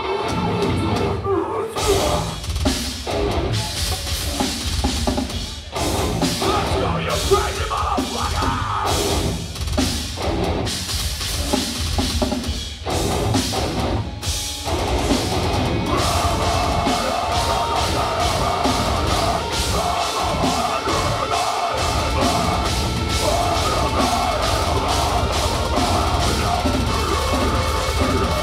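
Live deathcore band playing: heavily distorted guitars, bass and drum kit with bass drum. Over the first half it plays staccato stop-start hits with short gaps between them, then runs on continuously from about halfway.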